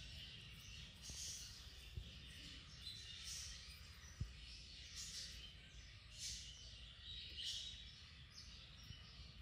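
Faint outdoor ambience with small birds chirping now and then, about once a second. Two soft knocks come about two and four seconds in.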